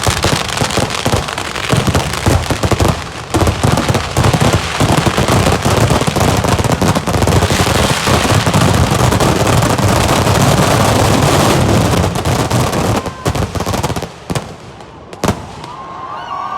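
Kerala temple-festival firecrackers (vedikettu) going off in a dense, continuous barrage, a rapid rolling string of blasts. About 13 seconds in it thins to three separate bangs a second or so apart.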